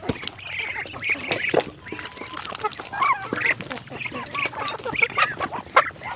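A flock of young Muscovy ducks peeping over and over in short, rising-and-falling calls while they feed, with bills clicking and slapping in a steel bowl of wet mash.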